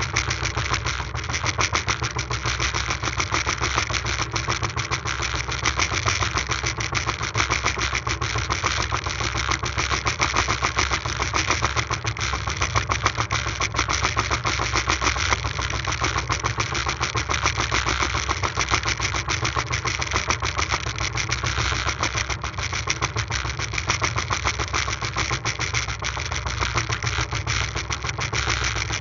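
Small fishing boat's engine running steadily underway, a fast even beat, with a steady hiss of wind and water over it.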